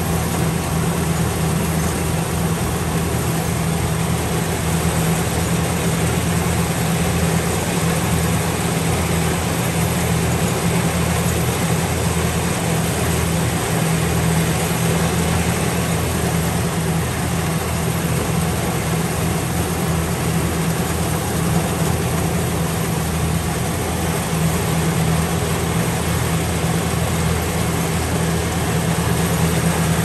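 Rice harvester's engine running steadily at a constant low pitch, with an even mechanical noise over it.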